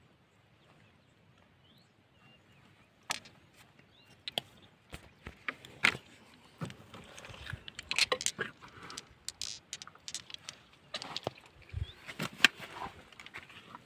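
Rocks knocking and clicking together in quick, irregular strikes, with some scraping, as stones are handled and dug through. It starts about three seconds in, after a quiet stretch.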